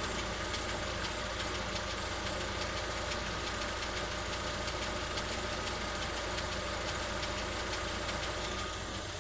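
A new Lada Vesta SW running at idle with a fast, even knocking. The owner cannot tell what is causing this knock.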